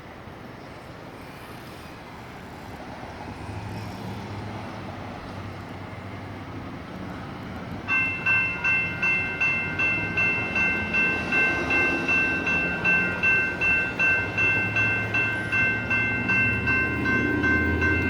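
Steady outdoor noise from road traffic and wind, then about 8 seconds in the crossing's General Signals Type 2 electronic bells start ringing, about two strikes a second: the grade crossing has activated for an approaching light rail train. A low rumble swells near the end.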